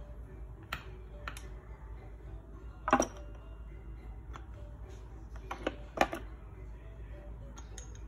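Glass storage jars set down on a bamboo tray: a few light clicks and knocks, the two loudest about three seconds in and about six seconds in.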